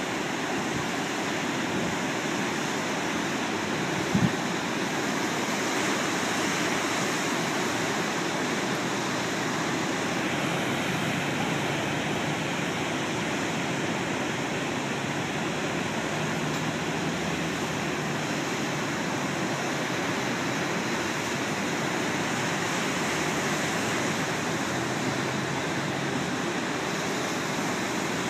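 Large ocean surf breaking, a steady wash of noise without a break, with one brief thump about four seconds in.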